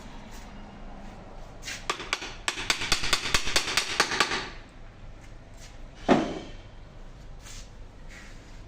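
Parts of an electric power steering rack being worked into place by hand: a quick run of sharp clicks for about two and a half seconds, then a single sharp knock about six seconds in.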